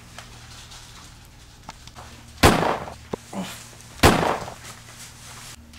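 Two loud bangs, about a second and a half apart, each followed by a short rough tail, over a steady low hum.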